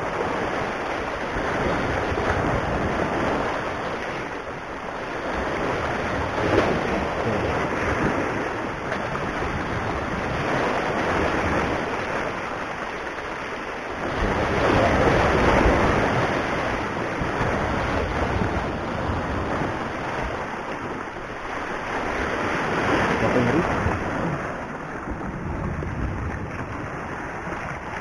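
Sea waves breaking and washing over the boulders of a rock breakwater, swelling and ebbing every several seconds, loudest about halfway through.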